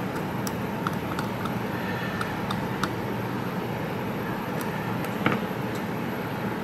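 Steady mechanical hum with faint, scattered ticks of a small tool scraping corrosion off a water-damaged circuit board, and a sharper scrape about five seconds in.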